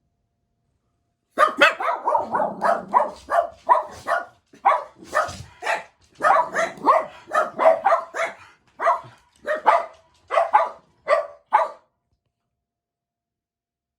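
Jack Russell Terriers barking rapidly and excitedly, a long run of sharp barks that starts after about a second and stops about two seconds before the end, the dogs worked up while waiting for their owner to come home.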